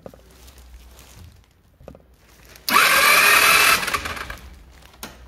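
Electric starter on a 125cc four-stroke scooter engine, whirring up in pitch and cranking for about a second before stopping, a trial start after a valve clearance adjustment. Faint knocks of handling before and after.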